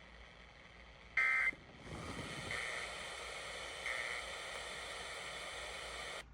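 Radio receiver audio: a short, loud electronic beep about a second in, then a steady hiss with faint tones under it and two fainter beeps at the same pitch. The hiss cuts off suddenly near the end.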